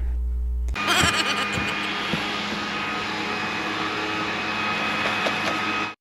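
Steady outdoor background noise: an even hiss with a few faint steady hums and some light clicks, starting about a second in after a low rumble and cutting off just before the end.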